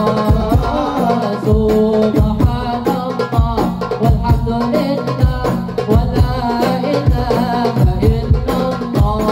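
A male vocalist sings an Arabic devotional syair through a microphone and PA, over hadrah frame drums and a bass drum beating a repeating rhythm.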